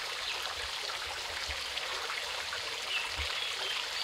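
Steady rush of running water, with a few faint high chirps about three seconds in.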